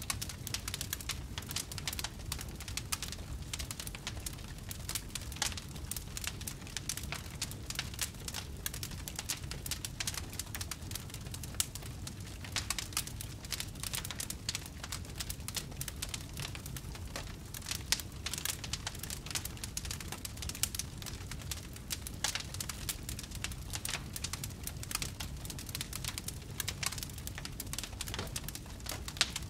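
Wood fire in a fireplace crackling and popping: many small, irregular pops over a steady low rumble.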